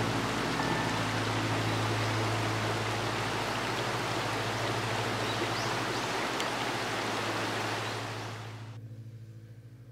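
Shallow river rushing over rocks in small rapids, a steady noise that fades out near the end, with a low steady hum underneath.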